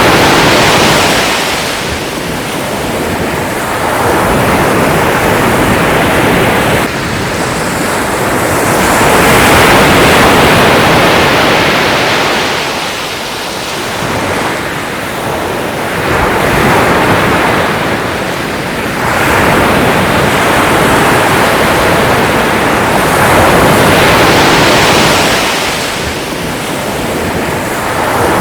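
Sea waves breaking and washing on the shore: a continuous rush of surf that swells and ebbs every few seconds.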